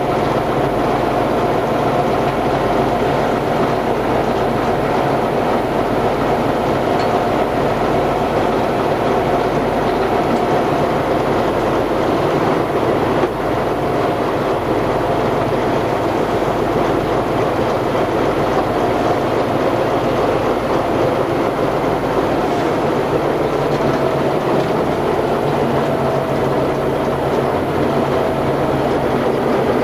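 Tatra 813 Kolos truck's air-cooled V12 diesel running steadily while driving off-road, heard from inside the cab as a loud, constant drone. There is a brief dip in loudness about 13 seconds in.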